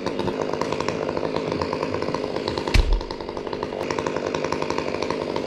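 Chainsaw engine running steadily, with a heavy thump about halfway through.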